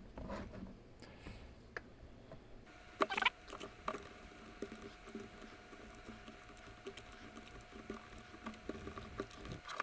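Small clicks, scrapes and rustles of 3D-printed plastic case parts being handled and fitted together, with one louder clatter about three seconds in.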